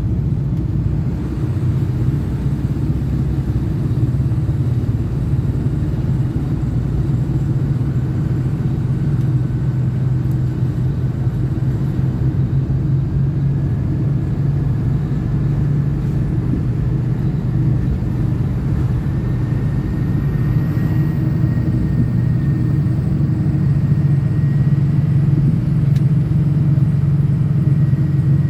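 Diesel pickup truck driving steadily, its 6.0 L Power Stroke V8 making a constant low rumble. A faint high whine creeps slowly upward in pitch from about a third of the way in.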